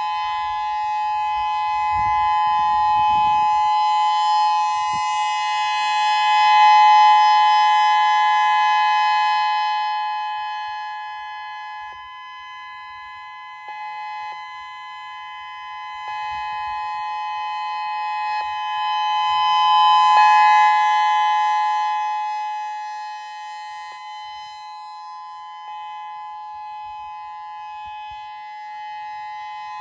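Outdoor civil defense warning siren sounding a steady two-tone note for a test of the early warning system. It swells loud twice and fades in between as the rotating siren sweeps toward and away.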